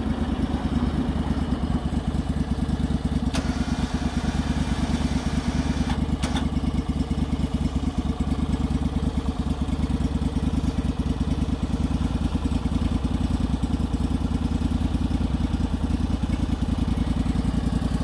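Portable bandsaw sawmill's gasoline engine running steadily at an even pitch, with two light clicks about three and six seconds in.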